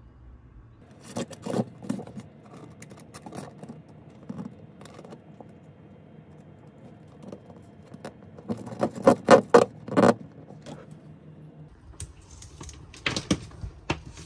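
Hands handling loose electrical wiring and plastic cable ties: rustling and scraping broken by irregular sharp clicks and knocks. A quick run of loud clicks comes about nine to ten seconds in, and another near the end.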